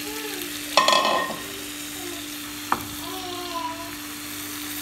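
Marinated chicken pieces sizzling as they fry in hot oil in a pan, with a steady hum underneath. A spoon stirs and clatters against the pan about a second in, and taps it once sharply just before three seconds.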